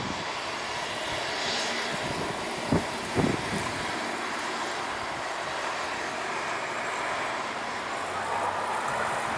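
Airbus A320neo's CFM LEAP-1A jet engines running at low taxi power as the airliner turns to line up on the runway: a steady jet hiss and hum, with two brief thumps about three seconds in.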